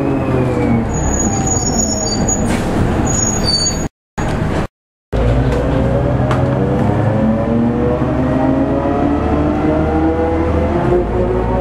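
MCW Metrobus heard from on board, its worn hub-reduction planet gears whining. The whine falls in pitch as the bus slows, then climbs steadily as it pulls away and accelerates, over the Gardner diesel engine. The sound cuts out twice, briefly, around four seconds in.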